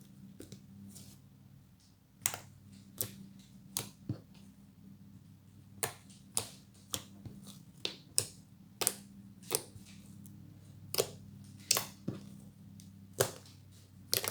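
Fluffy slime being squeezed and poked, giving off sharp irregular pops and clicks as trapped air bubbles burst, about one or two a second, over a faint steady hum.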